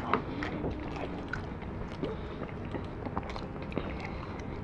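A person chewing a mouthful of beef stew, with scattered small clicks and scrapes from a plastic fork in a foam takeout container.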